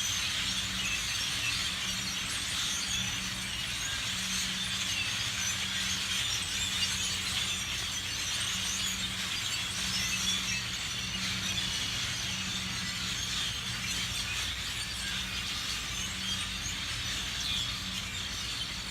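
A large roosting flock of thousands of birds calling together in a bamboo stand at dusk, a continuous dense chatter of high chirps with no break. A low hum runs underneath, coming and going.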